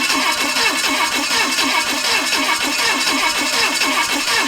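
Chevrolet 283 small-block V8 running on only four cylinders with one cylinder head fitted, idling with an even, rhythmic exhaust pulse that sounds weird for a V8.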